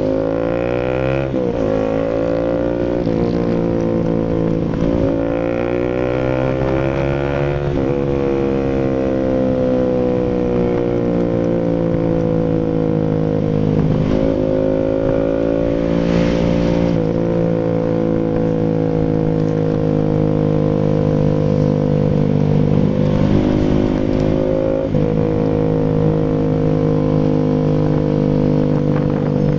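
Bajaj Rouser RS200's single-cylinder engine running through an SC Project full aftermarket exhaust. The exhaust note falls and rises as engine speed changes, sliding slowly down and dropping sharply twice, about eight and fourteen seconds in.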